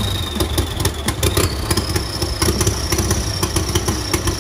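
Turbocharged Harley-Davidson 1200 V-twin, converted to fuel injection, running near idle on a rough first guess-and-check tune, its beat uneven and punctuated by irregular sharp pops. A high thin whine rides over it and steps up in pitch about a second and a half in.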